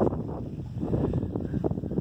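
Wind buffeting the microphone in uneven gusts, a low rumbling rush.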